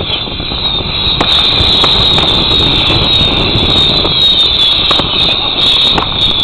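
A pile of heksehyl (Danish whistling fireworks) going off together. A dense wall of high shrill whistles, many gliding down in pitch, with sharp cracks scattered through it.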